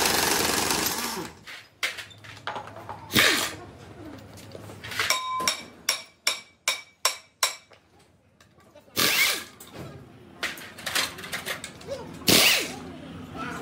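Workshop tool noise on a truck gearbox: a power tool running and dying away in the first second, then a run of about eight sharp metal knocks with a ringing tone, roughly three a second, and two short loud bursts of tool noise later on.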